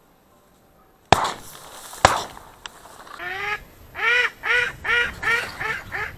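Two sharp bangs about a second apart, then a mallard quacking in a quick series of about eight quacks.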